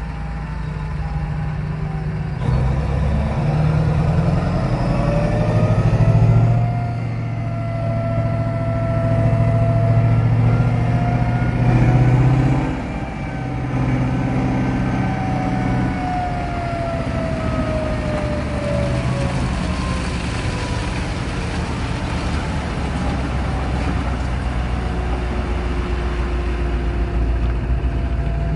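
Mining haul truck's diesel engine running hard under load while its hydraulic hoist tips the loaded dump bed. The engine surges twice, and whines rise and fall in pitch over its deep hum. A rushing noise builds in the second half as the rock load slides off the raised bed.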